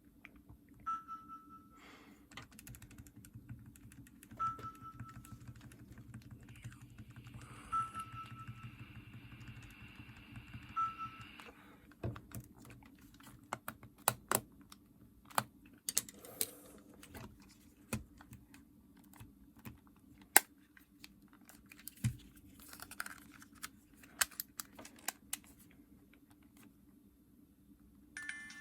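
A Nintendo DS Lite being operated by hand: four short high beeps from its speaker a few seconds apart, then a long run of small sharp plastic clicks and taps as it is used.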